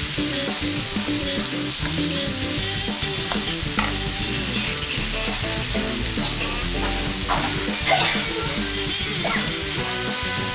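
Food sizzling in hot oil in a frying pan while a spatula stirs it, with a few short scrapes of the spatula against the pan between about three and nine seconds in.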